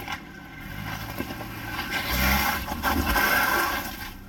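Off-road vehicle's engine and tyres working over rock. The noise builds from about a second in, peaks around two to three seconds, then eases.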